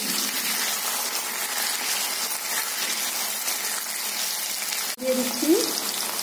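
Potato cubes frying in hot oil in a steel kadai: a steady sizzle. About five seconds in the sound breaks off abruptly at an edit, and a short rising tone follows.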